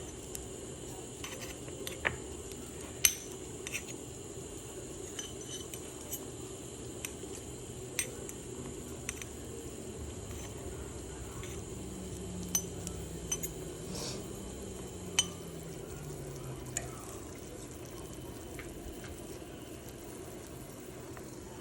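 A metal spoon or ladle clinking against kitchenware, with scattered sharp clinks about a dozen times, over a steady hum.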